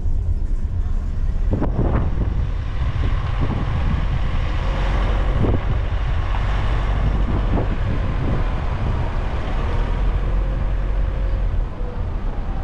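Moving road vehicle heard from on board: a steady low rumble of engine and tyre road noise, with a few short knocks from bumps in the road.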